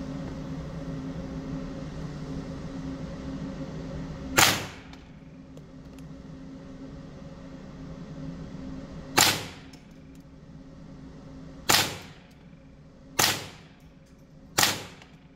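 Five suppressed .22 LR rifle shots from an HK416 rimfire fitted with a YHM Phantom 22 suppressor, each a sharp crack with a short echo off the indoor range. The first comes about four seconds in, the second about five seconds later, and the last three follow about a second and a half apart.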